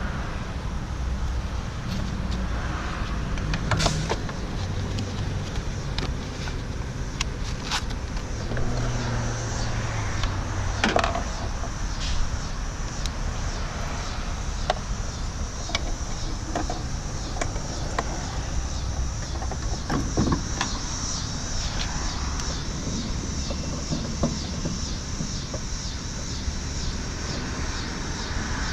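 Steady outdoor background rumble with a few scattered sharp clicks and light knocks from handling the headlight bulb socket and the plastic parts around it.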